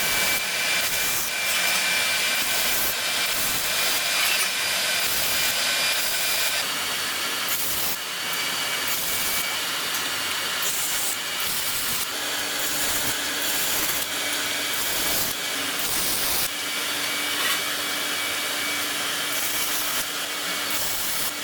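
Jet 2000 handheld laser welder with single-wire feed tack-welding steel: a steady hiss with a faint high whine, changing abruptly every few seconds.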